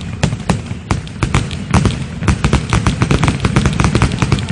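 Fireworks going off in a rapid barrage of bangs and crackles over a low rumble, the pops coming thicker and faster about two seconds in.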